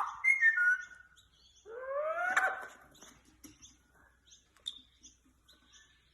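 A parrot calling: a few short falling whistles, then a louder rising squawk about two seconds in, then soft scattered chirps and clicks.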